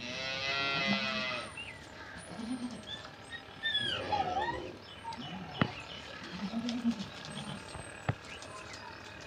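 A loud, drawn-out livestock call lasting about a second and a half at the start. Faint high chirps, quieter low calls and a couple of sharp knocks follow.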